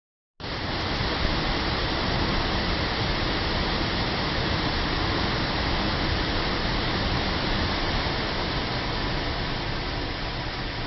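A waterfall's steady rushing water, starting abruptly a moment in and running on without change.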